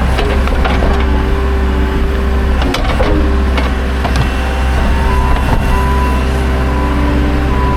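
Skid steer engine running steadily, with a few short knocks and clanks.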